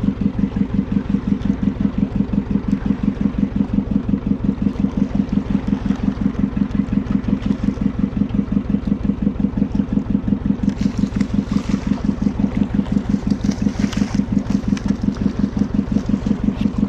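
Fishing boat's engine running steadily, with an even thumping beat of about four to five pulses a second.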